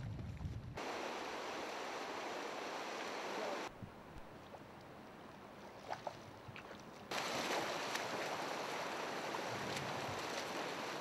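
Rushing river water running over a shallow, rocky riffle: a steady rush that jumps abruptly in loudness three times, quieter in the middle stretch.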